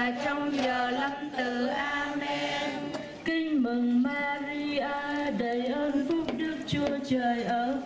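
A group of voices chanting prayer together in a slow, sung cadence, with long held notes.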